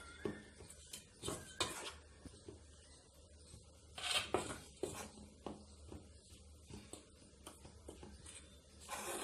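Metal spoon scraping and clinking against a stainless steel bowl as oil is worked into dry flour, in irregular strokes, with louder scrapes about a second and a half in, around four seconds in and near the end.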